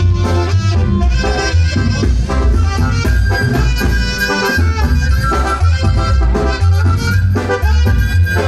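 A live tamborazo band playing Mexican dance music, with a heavy, pulsing bass beat under the melody.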